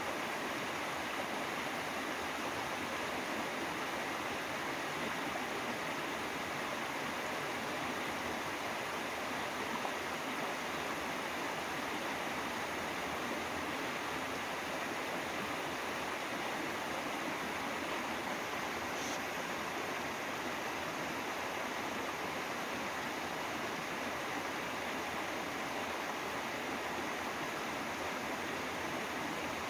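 Mountain valley stream running, a steady, even rush of flowing water.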